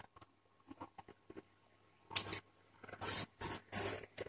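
Soft scraping and light clicks of dough being moved out of a bowl onto a stainless-steel plate, with a few faint clicks first and then several short scratchy bursts in the second half.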